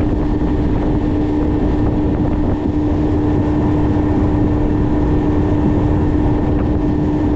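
Motorboat running at steady speed: a constant engine drone with one unwavering tone over heavy rushing wind and water noise.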